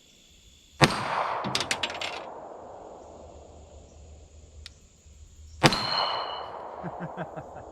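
Two shots from a Springfield Armory XD .45 ACP pistol, about five seconds apart, each echoing. A few quick metallic clinks follow the first shot, and a steel target rings briefly after the second.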